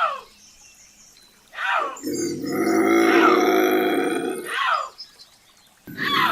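Bobcat screaming: a harsh, raspy call about two and a half seconds long, with short cries that slide sharply downward in pitch just before and after it. There are quiet gaps between calls, and another scream begins near the end.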